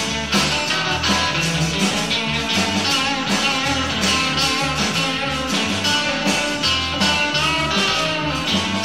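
Live rock band playing an instrumental passage: electric guitar over a drum kit, with no singing. Heard from behind the kit, so the snare and cymbals are close.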